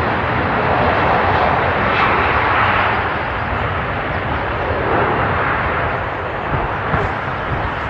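Jet airliner engines running, a loud steady rushing noise, with a few short pops near the end.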